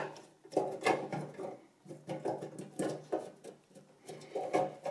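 SATA drive backplane circuit board being slid up out of a sheet-metal drive cage: a string of irregular short clicks and scrapes of board edges and plastic against the steel, over a faint steady low hum.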